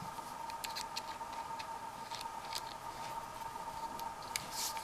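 Faint, scattered light clicks and taps of small objects being handled, over a steady faint hum.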